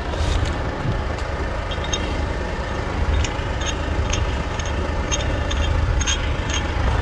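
Heavy truck engine running steadily at idle, with scattered light metal clinks of chain rigging on top.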